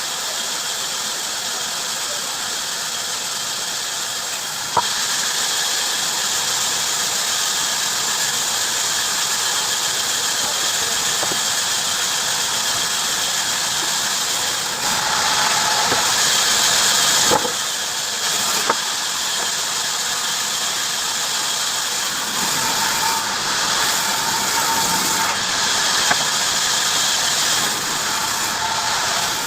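Heavy-duty bandsaw cutting wood: a steady hiss of the blade in the timber, which steps up in level with a click about five seconds in. Short squealing tones come and go, with a few sharp knocks.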